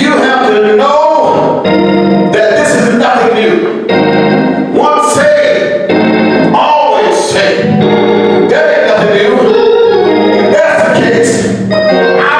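Church organ playing held chords that change every second or two, with a voice singing over it in long gliding phrases.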